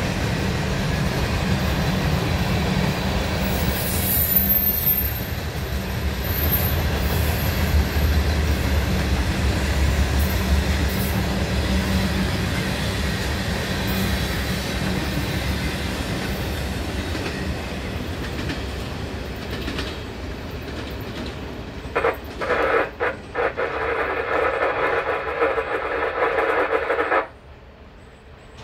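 Freight train cars rolling past, a steady rumble of wheels on rail with a faint high wheel squeal about four to seven seconds in. Near the end a louder pitched sound with a few breaks comes in and stops suddenly as the end of the train passes, leaving it much quieter.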